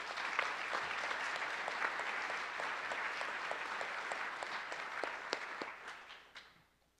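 An audience clapping its hands in applause, fading away about six seconds in.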